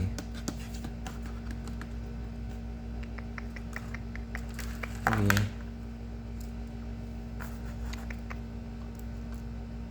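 Light, quick clicking of small objects handled close to the microphone, with a short hummed voice sound about five seconds in, over a steady electrical hum.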